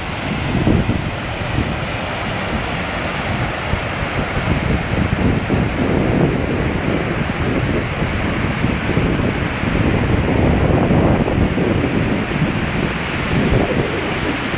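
Floodwater spilling over a concrete weir and rushing through rocky rapids: a loud, steady rush of white water, with wind gusting on the microphone.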